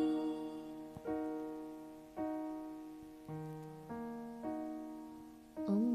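Instrumental interlude of soft piano chords, a new chord struck roughly every second, each left to ring and fade away.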